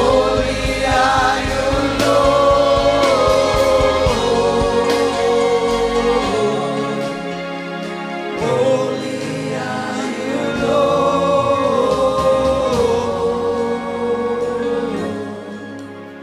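Live gospel worship music: singers holding long, sliding notes over accompanying instruments, with the bass falling away for a couple of seconds around the middle.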